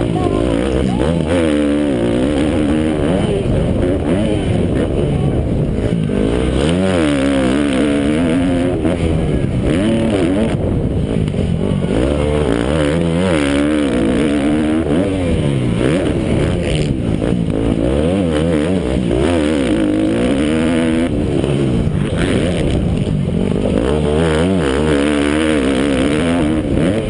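Motocross bike engine at race pace, its pitch climbing and dropping again and again every few seconds as the throttle is opened and shut.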